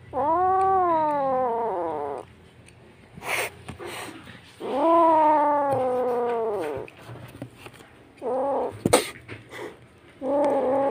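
Wild kitten meowing loudly: two long, drawn-out cries that rise then fall in pitch, then two shorter meows near the end. A few sharp clicks fall between the cries.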